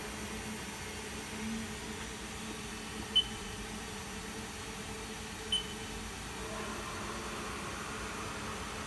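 Steady mechanical hum of a powered machine in a machine shop. Two short high-pitched beeps stand out, about two seconds apart.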